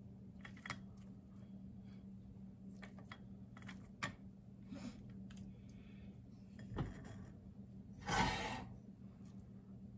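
Light clicks and clinks of metal tongs against a stainless steel pan as pieces of Chinese broccoli and seafood are arranged, over a steady low hum. A louder, brief rustling noise comes about eight seconds in.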